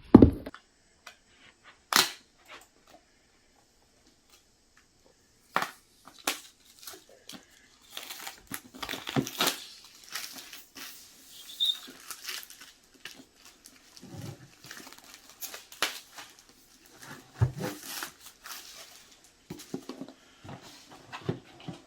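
Plastic seal on a new Apple MacBook Pro box being torn open and peeled off, with crinkling rustles, scratches and sharp clicks and taps as the box is handled.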